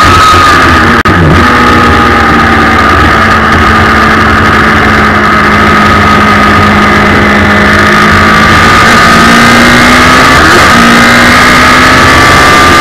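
Suzuki Hayabusa 1300 inline-four motorcycle engine driving a race car, heard onboard under load. About a second in the revs drop sharply as the car slows for a corner. The engine holds a steady lower note through the bend and revs up again near the end as the car accelerates out.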